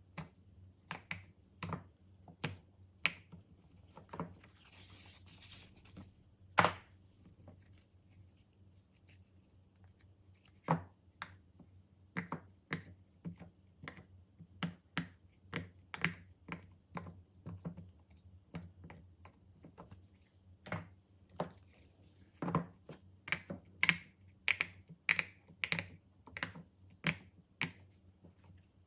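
Fidget toys being popped and clicked by hand: a long run of sharp, irregular clicks that comes thicker near the end, with a brief rustle about four to six seconds in.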